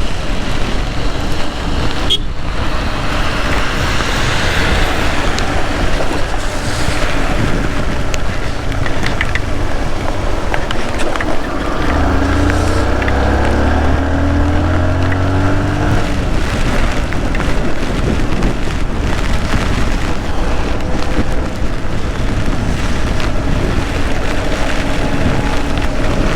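Steady wind and heavy-rain noise on the microphone of a Yamaha R15 motorcycle riding in a downpour, with engine sound underneath. An engine drone swells for a few seconds about halfway through.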